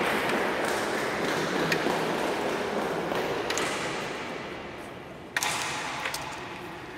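Sharp clicks of carrom pieces on a carrom board, the loudest a single crack about five seconds in with a smaller click just after, over a background hiss that fades away.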